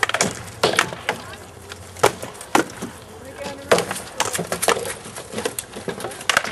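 SCA rattan swords striking shields and armour during armoured sparring: irregular, sharp wooden cracks and knocks, some coming in quick flurries of two or three.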